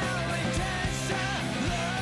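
Background rock music with distorted guitar and a singing voice.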